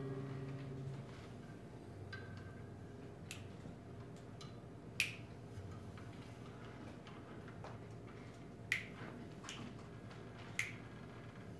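A flamenco guitar's last notes die away in the first second, then a quiet stretch broken by a handful of sharp, irregularly spaced finger snaps (pitos), the loudest about halfway through and twice near the end.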